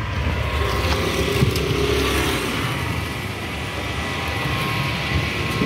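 Steady low rumble and hiss of motor-vehicle noise, swelling slightly over the first couple of seconds.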